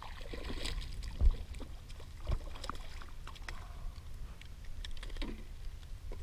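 Small knocks and clicks of a caught fish and fishing tackle being handled on a plastic kayak, with two louder thumps about one and two seconds in, over a steady low rumble.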